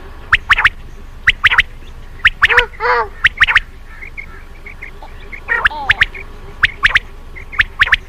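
Common quail (batair) singing its sharp three-note 'wet-my-lips' call, the phrases coming roughly once a second. A few lower, drawn-out calls come about three seconds in and again near six seconds.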